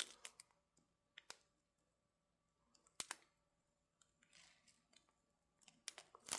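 Near silence with a few faint, short clicks: small plastic bags of diamond painting drills being handled.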